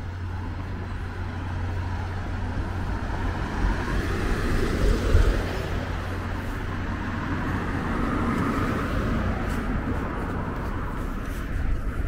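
City road traffic: cars passing in a steady din, swelling twice as vehicles go by, with low rumbles about five seconds in.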